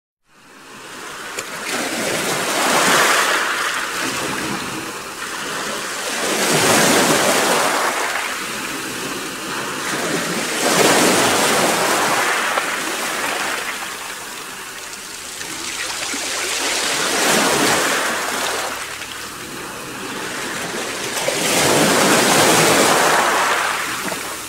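Sea surf: waves breaking and washing ashore, five slow swells of rushing noise about four to five seconds apart.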